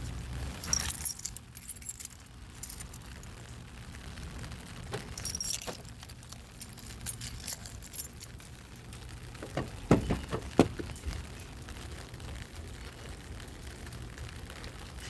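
Keys jangling in several short bursts, with a few dull thumps about ten seconds in.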